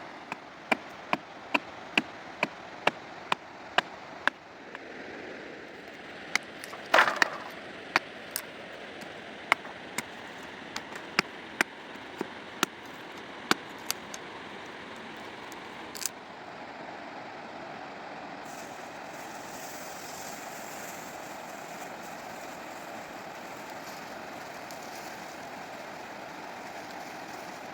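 A series of sharp knocks or taps, evenly about two a second at first, then sparser and irregular with one louder rattling knock, over a steady rushing background noise.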